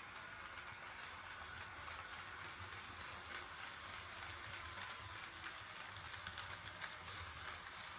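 HO scale model train running on sectional track: a steady whir with a low hum, and light clicking from wheels over the rail joints that becomes busier in the second half.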